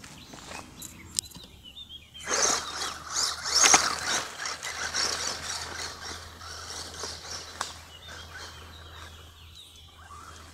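Wltoys 12428-B 1/12-scale electric RC truck driving over loose dirt and gravel. Its tyres make a gritty rush with scattered clicks that swells about two seconds in, is loudest around four seconds, and fades after six as the truck moves away.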